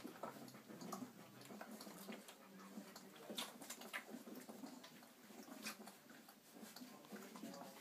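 Faint squeaks and small clicks from a litter of four-week-old Irish setter puppies suckling.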